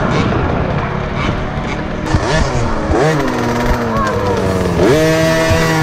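Dirt bike engines revving, their pitch rising and falling in quick blips, the sharpest rise about five seconds in.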